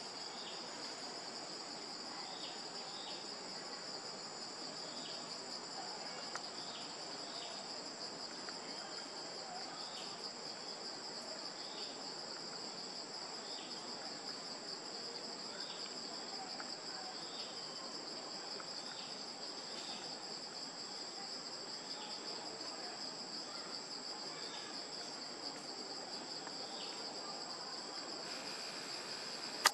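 Steady high-pitched insect drone from the surrounding trees, with faint short chirps repeating about once a second.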